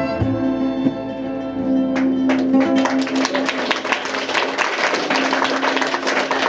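Live Roma folk band with violin, accordion and acoustic guitars. They hold a sustained chord over plucked notes, then break into a dense run of fast guitar strumming about two and a half seconds in.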